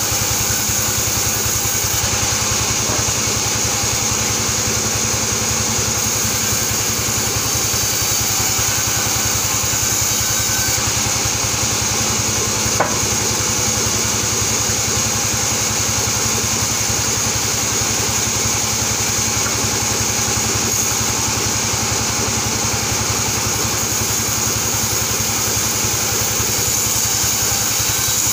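Sawmill band saw running steadily without cutting, a constant machine drone with a high whine above it. A single sharp click about thirteen seconds in.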